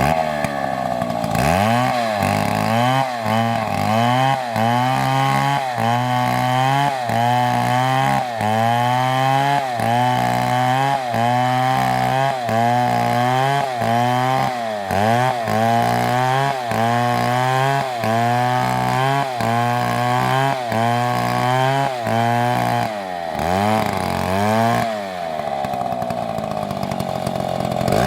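Chainsaw running under load, cutting wood: the engine's pitch drops and recovers about once a second as the chain bites, with a deeper sag near the end.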